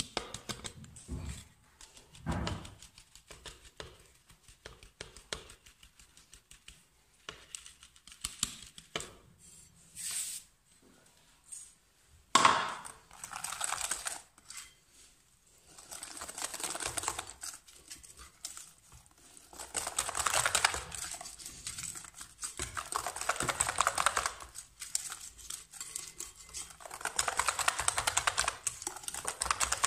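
Hand whisk beating flour into cake batter in a glass bowl: scattered quiet taps at first, then spells of rapid clicking and scraping against the bowl from about halfway on.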